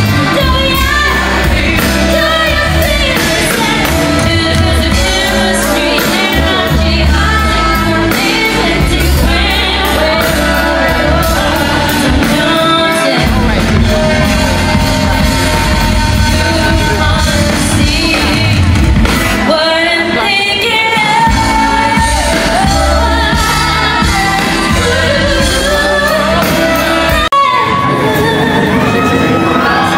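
A live band and a singer performing a song through the concert sound system, with shouts and whoops from the audience. The bass drops out near the end.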